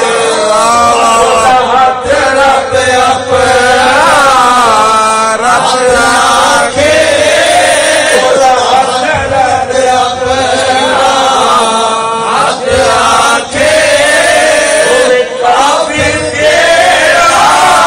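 A man chanting a devotional recitation in a melodic voice into microphones, drawing out long notes that waver and bend in pitch.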